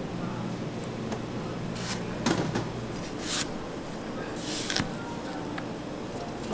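Chef's knife slicing peeled apple on a plastic cutting board: a few separate crisp cuts, some ending in a light knock of the blade on the board. Under them runs a steady low hum.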